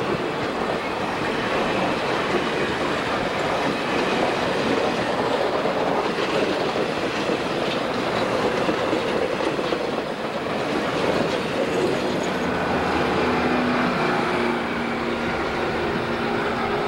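Passenger cars of a steam excursion train rolling past close by, wheels clattering steadily over the rail joints. A steady ringing tone joins the clatter about twelve seconds in.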